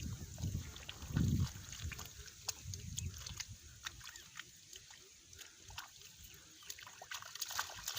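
Muddy water sloshing and splashing as hands and legs move through shallow water. There are heavy low splashes in the first second and a half, then quieter scattered small splashes and clicks.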